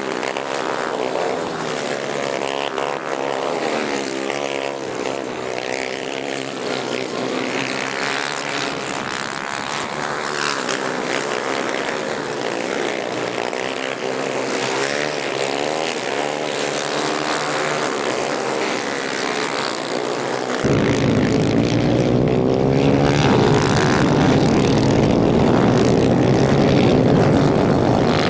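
250 cc racing kart engines revving and easing off in waves as the karts race, the pitch rising and falling with each lap section. About two-thirds of the way through the sound turns suddenly louder and fuller as a kart is heard close up.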